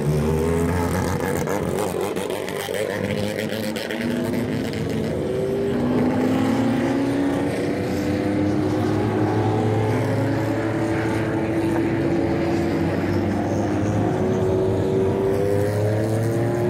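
Race car engines running at low revs as vintage race cars roll down pit lane one after another. The pitch rises slowly from about six seconds in as the next car draws near.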